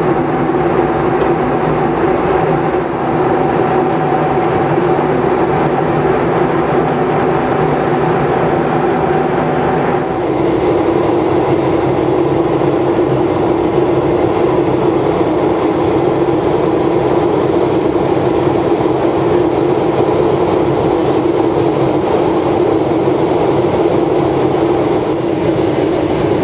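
Steady jet aircraft cabin noise inside a Boeing 757-200: engine and airflow, a constant broad rush with a low hum. About ten seconds in, the tone of the drone changes abruptly.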